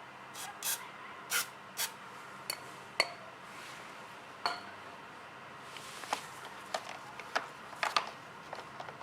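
Hand tools and small metal parts being handled: scattered short clicks, scrapes and light knocks, two of them with a brief metallic ring.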